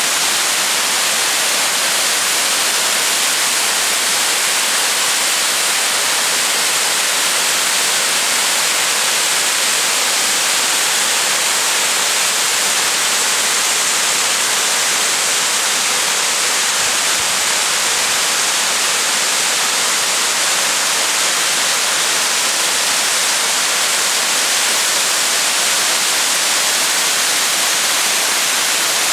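Clocota waterfall: water falling and splashing in a loud, steady rush of noise that does not change.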